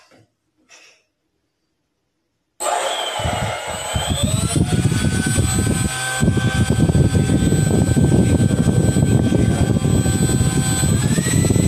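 Electric ducted fan jet unit, rated for a 4S battery but running on 3S, started by hand. It comes on suddenly about two and a half seconds in with a loud rush of air and a whine that climbs as it spools up, holds steady, then whines higher near the end as the throttle is opened further.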